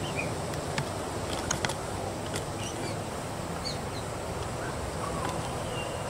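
Steady outdoor background hiss with a few faint, short bird chirps and a couple of sharp clicks.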